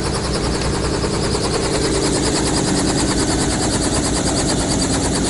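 A Robinson helicopter running on the ground close by: a steady engine drone under the fast, even chop of its two-bladed main rotor.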